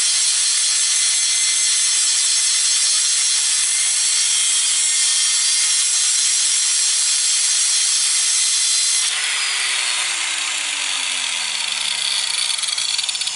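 Corded cut-off wheel grinding into metal with a steady high-pitched screech. About nine seconds in the cutting stops and the wheel's motor spins down, its tone falling steadily.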